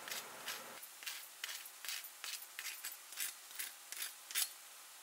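Fork tines pressing into the crust of a freshly fried aloo tikki (potato patty), giving faint, irregular crisp crackles about three a second that show how crispy the fried crust is.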